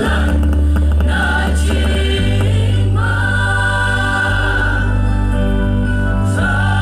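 Mixed choir of women's and men's voices singing in harmony, holding long chords that change about two and three seconds in.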